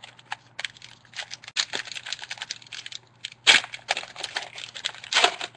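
Trading cards being handled and flipped through one after another: quick clicks and rustles of card stock, with two louder sliding swishes, one midway and one near the end.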